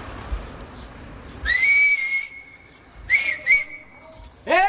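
A person whistling loudly to get someone's attention: one long whistle that slides up and then holds, followed by two short whistles. Near the end comes a brief shouted call that rises and falls.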